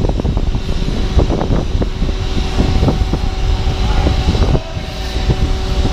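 A heavy engine running steadily under loud wind buffeting on the microphone, with a steady hum setting in about two seconds in.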